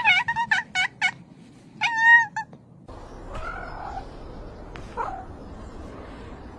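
A cat makes a quick run of about five short, chirping calls, then one longer meow about two seconds in. After about three seconds the sound changes to a low steady background with a couple of faint calls.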